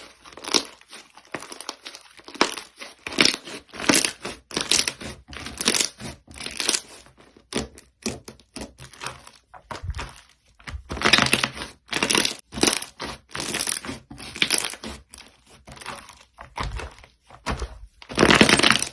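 Slime being squeezed, pressed and stretched by hand, giving irregular crackly squishes and pops a few times a second, with brief pauses between handfuls.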